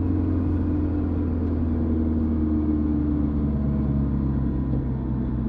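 Exhaust note of a Mitsubishi Pajero NS short-wheelbase through a 3-inch stainless steel exhaust, heard from inside the cabin: a steady, deep engine drone with a low hum as the engine pulls in a lower gear just after a downshift.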